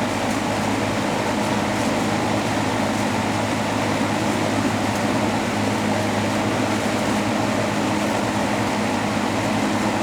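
Vintage McGraw Edison Eskimo 20-inch box fan running steadily on high speed: an even rush of air over a steady motor hum. The fan is as received and not yet oiled.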